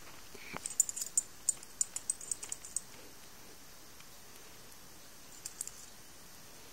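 Dog's metal collar tags clinking in light, quick clicks as its neck and head are scratched. About a dozen clinks come over two seconds, then a few more near the end.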